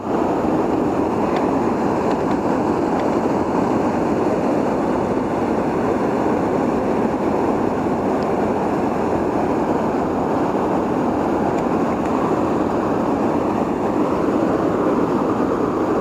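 Steady rushing noise of flowing river water, even and unbroken.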